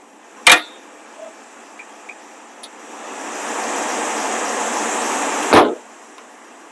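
A sharp click, then a steady mechanical rushing noise that builds up over about a second, runs for a couple of seconds and stops with a loud heavy thump.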